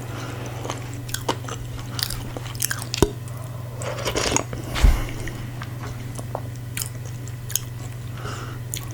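Close-miked chewing and mouth sounds of someone eating fufu with meat in soup, with scattered sharp clicks and a louder stretch about four to five seconds in.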